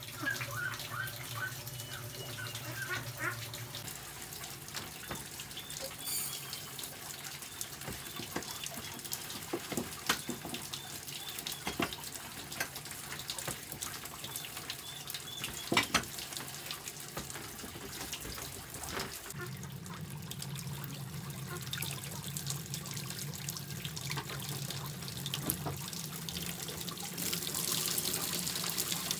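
Water pouring steadily from a pipe and splashing onto a plastic barrel lid, with a few sharp knocks partway through. Rice is being rinsed in a metal pot.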